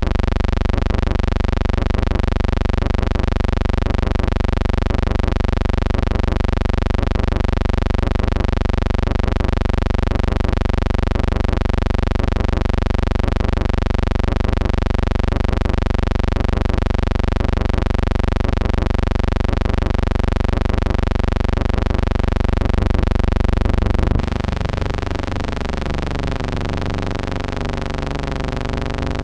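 A loud, steady buzzing drone with many evenly spaced overtones. About 24 seconds in it gets slightly quieter and turns into a wavering, shifting tone.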